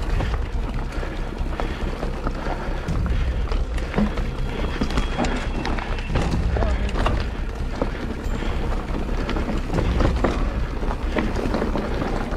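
Background music over mountain bike trail noise: steady wind rumble on the camera's microphone and the bike rattling and clicking as it rolls over bumpy dirt singletrack.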